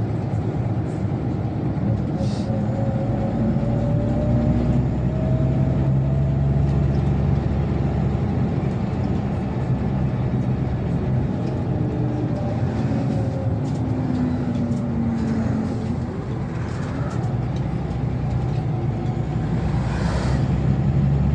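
Inside a Scania Omnilink city bus under way: steady low engine and road rumble, with a whine that rises in pitch a few seconds in as the bus gathers speed. Short hisses come about two seconds in and again near the end.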